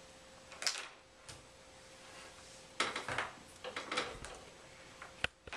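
Light knocks and clatter of plastic Play-Doh tubs and toy tools being handled on a wooden table: a few scattered taps, two short bursts of clatter in the middle, and a sharp click near the end.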